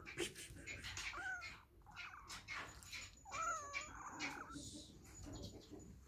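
A cat meowing in several short calls, about four, with soft clicks in between.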